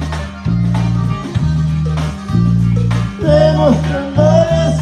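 Norteño band playing a corrido, with no sung line until the very end: bass notes keeping a steady beat under strummed bajo sexto and drums, and a melodic fill sliding in pitch near the end.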